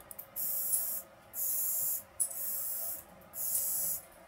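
Small hobby servo whirring as it swings back and forth, four short high-pitched buzzing moves about a second apart, each lasting well under a second. It is driven by a PCA9685 PWM servo driver, and the sound is called kind of annoying.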